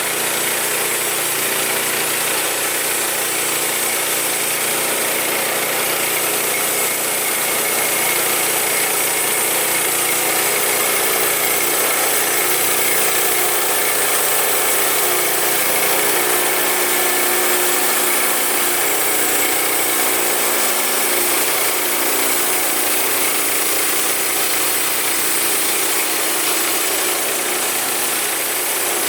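The 9.5 hp gasoline engine of a Woodland Mills HM122 portable band sawmill running steadily and loudly, with no change in speed.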